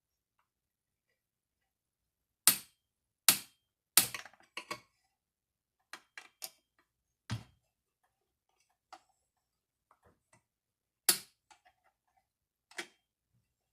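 Sharp clicks and clacks of parts and tools being handled and set down during a chainsaw teardown: about five loud knocks spread irregularly, with fainter ticks between them.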